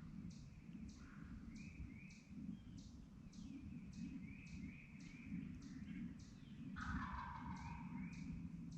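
A wild turkey tom gobbles once, about seven seconds in. Under it runs a steady string of high, short chirps about twice a second, with paired rising call notes from other birds.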